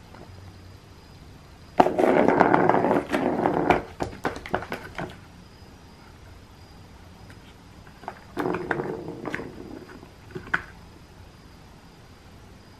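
The plastic ball of a Turbo Scratcher cat toy rolling around its circular plastic track as a cat bats it. There are two runs: a longer one about two seconds in that slows into separate clicks and knocks, and a shorter one about eight seconds in.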